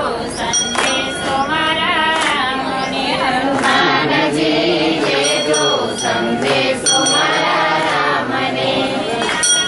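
Voices singing a Hindu devotional bhajan together, with a few sharp strikes through it.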